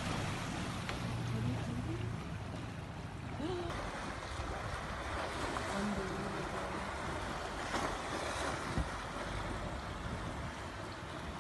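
Wind on the microphone and choppy river water washing against a boat: a steady, even rush of noise.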